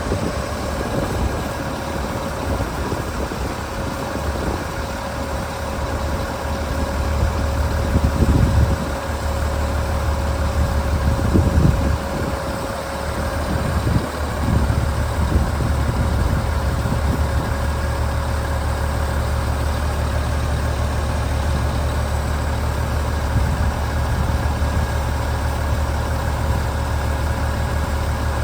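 Diesel engine of a Daewoo concrete pump truck running steadily, with a constant low hum and a steady higher tone, and a few brief louder swells about a third of the way in and near the middle.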